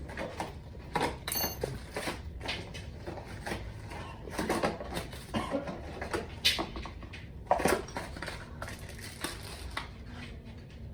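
Scattered metal clinks and knocks of hand tools and bicycle parts being handled while mountain-bike drivetrain parts (chain, sprocket, shifter) are fitted.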